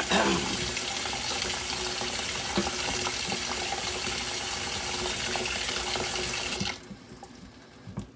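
Kitchen faucet running into a stainless steel sink, water splashing steadily over a sponge and hands. Near the end the tap is turned down to a thin trickle and the splashing drops away sharply, leaving a few light knocks.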